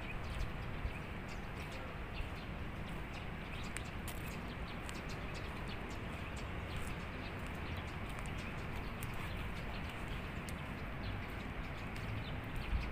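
Steady outdoor background noise with scattered short, high bird chirps from roadside trees.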